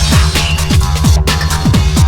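Electronic background music with a fast, steady beat of deep kick drums and a sustained bass line.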